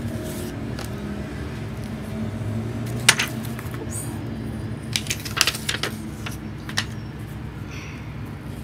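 Cardboard eyeshadow palette being handled and opened: a sharp click about three seconds in as the lid comes open, then a cluster of light taps and clicks around five to six seconds. A steady low hum underneath.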